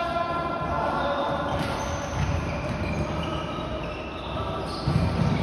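Reverberant sounds of floorball play on a sports-hall court: players' shoes squeaking and shuffling, stick and ball clatter, with a louder thump about five seconds in.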